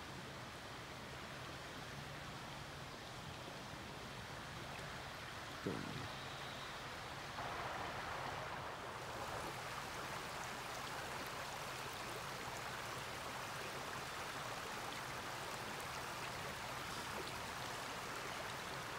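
Steady rush of a flowing creek, louder from about seven seconds in, with one brief dull thump about six seconds in.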